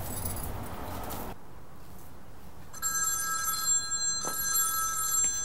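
Phone ringing with an electronic tone in two rings, the first about three seconds in and a longer second one after a short pause.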